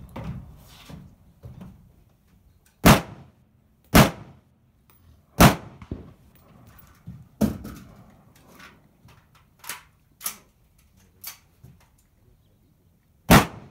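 Single gunshots fired slowly one at a time, about eight in all, spaced one to three seconds apart, with a few of them fainter than the rest.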